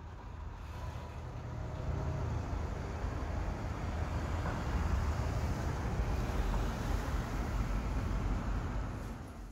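Street traffic: a low rumble of passing vehicles that builds toward the middle and fades near the end.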